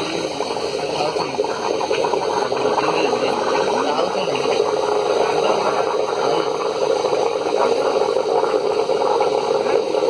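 Steam from a pressure cooker, let out through a hand valve and a steel nozzle into a steel mug of liquid, bubbling and hissing steadily as it heats the liquid.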